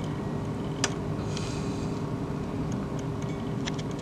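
Steady low hum from a fluorescent batten's ballast, powering an end-of-life Philips TL-D 18W tube with a blackened, burnt electrode end. A single sharp click comes about a second in.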